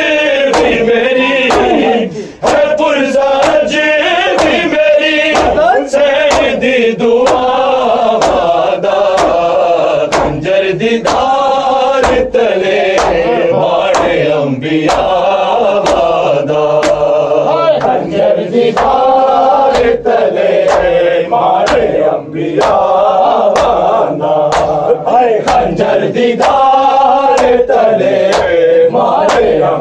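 Men chanting a Punjabi nauha, a Shia lament, with sharp chest-beating strokes (matam) keeping a steady beat under the chant.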